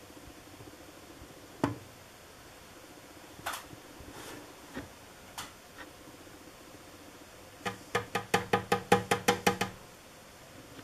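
Knocking on the plastic housing of a 1980s Sanyo ceiling fan. There are a few single knocks, then near the end a quick run of about fourteen, some seven a second.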